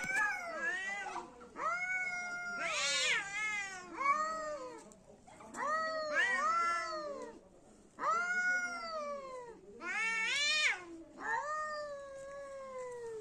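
Two domestic cats caterwauling at each other in a fight: a series of long, drawn-out yowls that waver up and down in pitch, at times overlapping, with short pauses between them.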